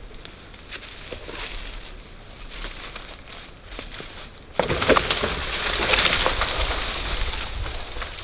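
Dry leaf litter crackling and rustling. There are scattered crackles at first, then a sudden, denser and louder crackling a little past halfway through.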